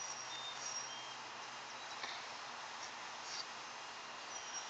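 Husky's paws scratching and digging in wood-chip mulch, faint against a steady background hiss, with a bird's short high chirping phrase near the start and again near the end.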